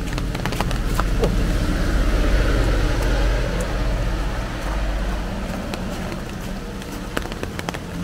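A car passing on a nearby road: a low rumble that swells over the first few seconds and fades away. Over it, irregular crunching footsteps on a gravel path.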